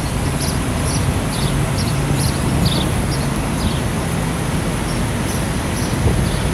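Steady low drone of fire trucks' engines running, with small birds giving short high chirps about twice a second over it.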